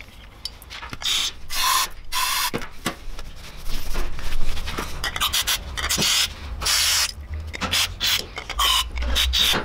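Aerosol can of brake cleaner sprayed in repeated short bursts into the oil passages of a Vanos valve body, flushing it clean.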